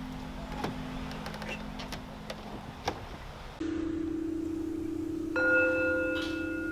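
Steady low drone that jumps to a slightly higher steady tone about three and a half seconds in. About five seconds in, a bell-like ringing tone joins it, like a struck singing bowl. Faint scattered clicks sit underneath.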